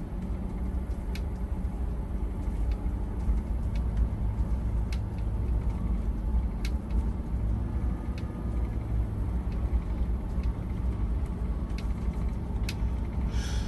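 Steady low engine and road rumble heard inside a moving vehicle's cabin, with a few scattered light clicks and rattles.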